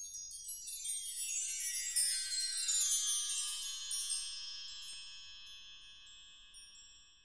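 Metal chimes: a quick run of high, bright strikes that steps down in pitch over the first three seconds or so, then rings on and slowly fades away.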